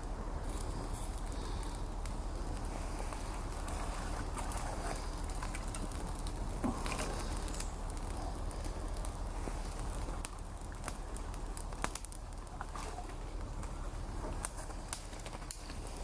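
Small wood fire crackling, with scattered sharp pops and ticks over a steady low background rush.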